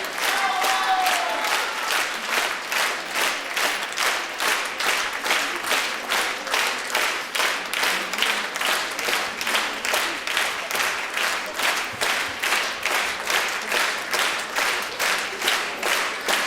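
Theatre audience clapping in unison, a steady rhythmic ovation of roughly two to three claps a second.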